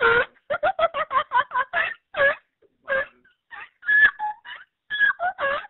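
A woman laughing hard: a quick run of short voiced bursts, about six a second, then more spaced-out bursts with a few thin high squeaks.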